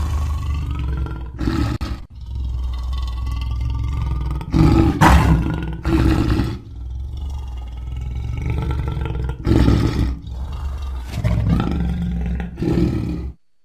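Lion growling and roaring: a deep, continuous rumble with several louder roars, cutting off suddenly near the end.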